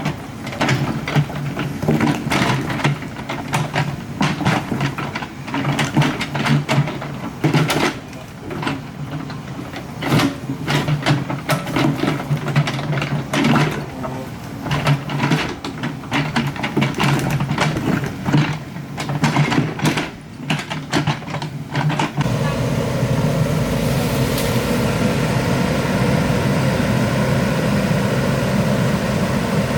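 Excavator at work: its diesel engine runs steadily under repeated irregular clanks and knocks of the bucket and tracks on rock and soil. About 22 seconds in this changes abruptly to a steady engine drone without the knocks.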